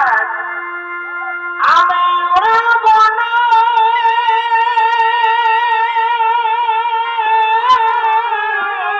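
Purulia Chhau dance accompaniment music: a melody held in long, wavering notes over a steady drone, with a few sharp drum strikes.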